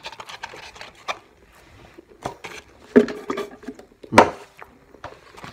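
Close-miked eating and fast-food packaging sounds: irregular mouth clicks, smacks and paper rustling, with a couple of louder clicks about three and four seconds in.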